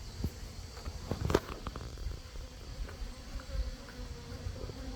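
Native Korean honeybees buzzing around the hive, with one bee humming close by in the second half. A few soft knocks, the loudest about a second in.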